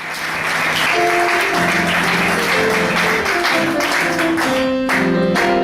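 Audience applause over the instrumental introduction of a show tune, with sustained notes and chords. The applause thins out about four seconds in as the music carries on.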